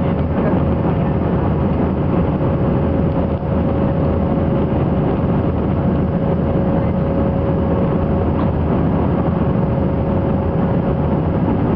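Steady cabin noise of an Airbus A319 in flight, heard from a window seat over the wing: jet engines running and air rushing past, with a steady humming tone running through it.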